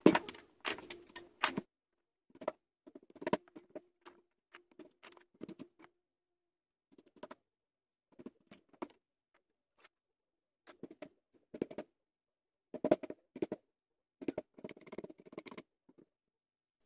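Steel I-lamination strips of a small UPS transformer core clicking and scraping as they are prised loose and pulled out one at a time: irregular clusters of small metallic clicks, some with a brief ring.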